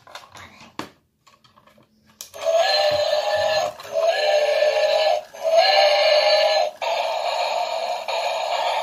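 A few light plastic handling clicks, then about two seconds in a battery-operated light-up toy train's small speaker starts playing a tinny electronic tune: three similar short phrases, then a steadier run of the tune near the end.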